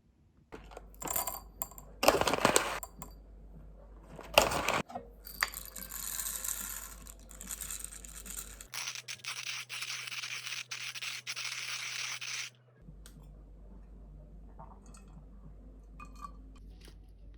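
Close handling noises: a few loud, short rips or scrapes, then several seconds of steady scratchy rubbing that stops abruptly, followed by a few faint clicks.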